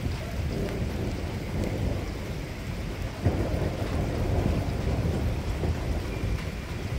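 Thunder rumbling steadily, with a louder roll that starts suddenly about three seconds in.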